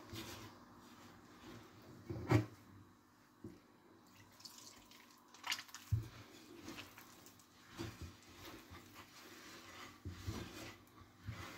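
Hands mixing and squeezing flour and water into msemen dough in a bowl: soft, irregular squelching and rustling, with a few sharp knocks, the loudest about two seconds in.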